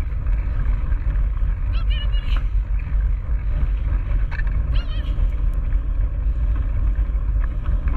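Steady low rumble of wind buffeting the microphone and bike tyres rolling over a dirt forest trail, heard from a handlebar-mounted camera on a bike pulled by a running dog. A few brief high-pitched sounds come about two seconds in and again near five seconds.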